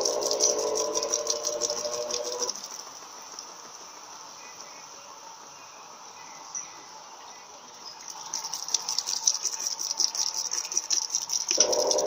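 Electrolux Turbo Economia 12 kg (LTE 12) top-loading washer in its spray-rinse spin: the drum spins while jets of water spray onto the load to flush out the soap. The motor's whine with the hiss and patter of the spray stops about two and a half seconds in, leaving a quiet hiss. The spray's patter comes back about eight seconds in, and the motor whine returns just before the end.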